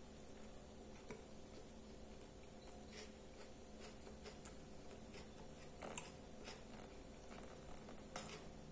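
Faint chewing and mouth sounds of a person eating a soft-bun hamburger, with a few soft clicks. Near the end, a plastic ketchup bottle is squeezed onto the burger.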